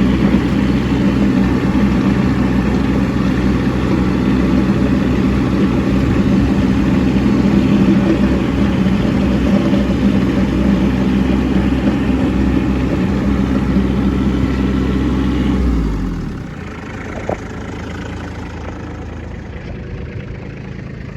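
Kubota B2601 compact tractor's three-cylinder diesel engine running steadily. About three-quarters of the way through, its sound drops sharply to a quieter, steady level, and a single click follows shortly after.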